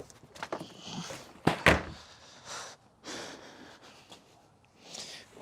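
Junk being tossed into a trash can: a few scattered knocks, two sharp ones close together about a second and a half in, then brief rustling swishes.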